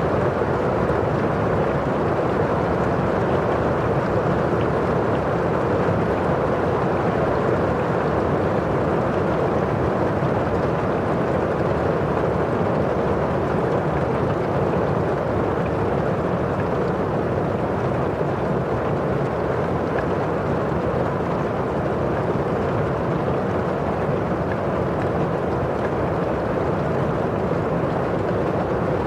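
Steady rain falling against window glass and outside, an even, unbroken wash of noise that holds a constant level throughout.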